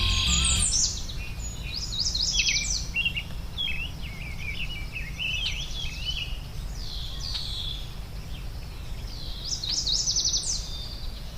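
Several songbirds chirping and singing, with quick falling trills about two seconds in and again near the end, over a steady low background rumble.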